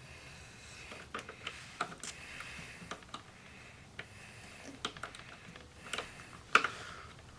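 Irregular light clicks and taps from handling a graphics card and its plastic PCIe power cable connectors, with one sharper click about six and a half seconds in.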